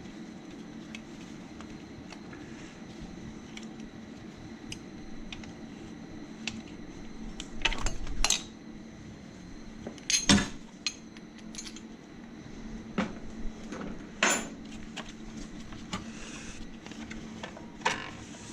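Metal hand tools and engine parts clinking and knocking in a series of sharp, irregular hits, loudest about ten seconds in, over a steady low hum.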